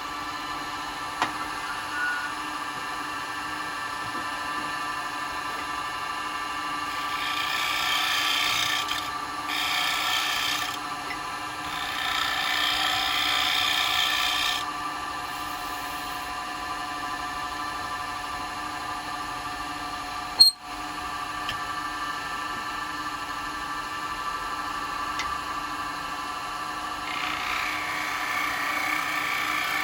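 Wood lathe running with a steady motor hum while a turning tool cuts into the spinning bowl blank. The cutting noise swells and fades in several passes, about a third of the way through, around the middle and again near the end. There is a single sharp click about two-thirds of the way through.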